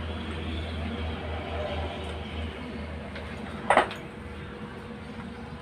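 A single sharp metallic clink about two-thirds through, as metal parts of a radiator fan clutch being taken apart knock together, over a steady low hum.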